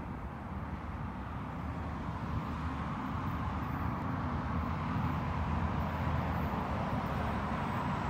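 Distant rumble of an approaching BNSF loaded coal train led by GE ES44AC locomotives, still far off, mixed with wind noise. It grows slowly louder.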